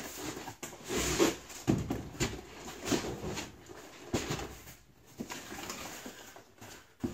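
Cardboard scraping and rubbing against cardboard as an inner box is pulled out of a larger shipping box, with a few dull knocks, then its cardboard lid flipped open near the end.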